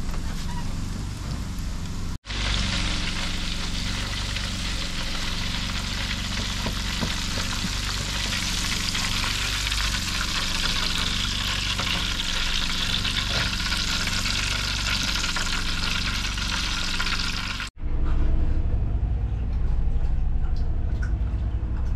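Frog legs deep-frying in a basket of hot oil on a camp stove: a steady, loud sizzle with a brief break about two seconds in. It cuts off suddenly about three-quarters of the way through, leaving a low hum.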